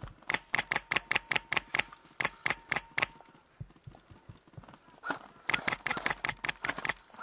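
Airsoft guns firing two strings of rapid single shots, each a sharp click, about four or five a second, with a pause of about two seconds between the strings.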